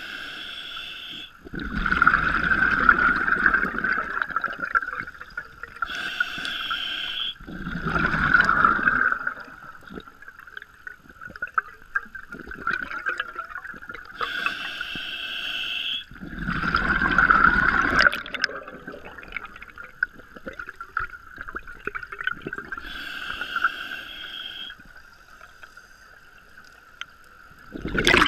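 Scuba diver breathing through a regulator underwater: a short hiss on each inhale, followed by a longer, louder burble of exhaled bubbles. The cycle repeats about every eight seconds, three full breaths with a fourth exhale starting at the very end.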